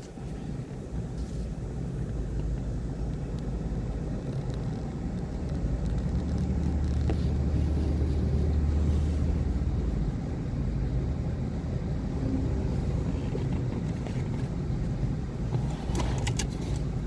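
Excavator's diesel engine running steadily, growing louder for a few seconds in the middle before easing back, with a few short sharp clicks near the end.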